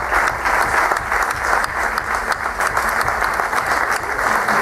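Audience applauding: many hands clapping in a steady, dense stream.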